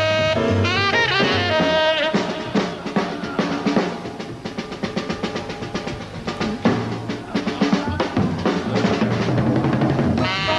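Jazz drum solo on a kit, with rapid snare and bass-drum strokes and cymbals, in a break of a swing tune. A tenor saxophone line ends about two seconds in and comes back in at the very end.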